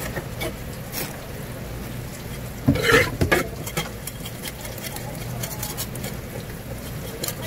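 Knife working a gizzard shad on a cutting board: wet scraping and small clicks as the fish is cut and cleaned, with a louder cluster of knocks about three seconds in, over a steady low hum.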